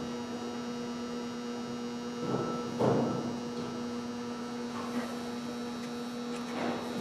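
Steady electrical mains hum, a low even drone with a higher buzz above it, with a couple of faint knocks about two to three seconds in.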